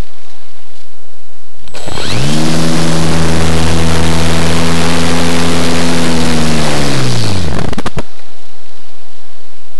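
Easy Glider Pro RC glider's electric motor and propeller running under power for about six seconds over constant wind rush on the onboard camera. The motor comes in about two seconds in and rises quickly to a steady whine, then its pitch falls as it winds down, and it cuts off sharply near the end.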